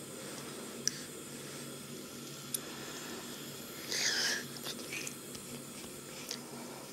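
A short slurping sip of hot doenjang-jjigae broth from a wooden spoon, about four seconds in, over a steady low hum. Two faint clicks come earlier.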